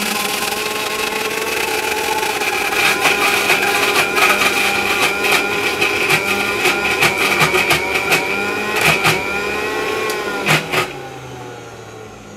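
Electric mixer grinder running with a steady whine while oil is added to emulsify egg whites and garlic into mayonnaise; its pitch wavers slightly as the mixture thickens. Sharp clicks repeat through the middle, and the sound drops in level about a second before the end.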